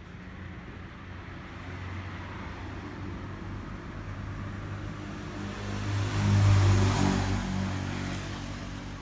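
A motor vehicle's engine running and drawing close, swelling to its loudest about six and a half seconds in, then fading away.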